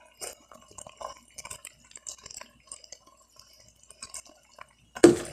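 Minced garlic being shaken and scraped out of a glass jar onto diced chicken in a pot, with small clicks against the jar and faint wet dripping. A louder sound comes right at the end.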